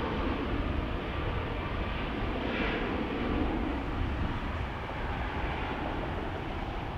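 Jet airliner engines, a steady rushing noise with a deep rumble underneath.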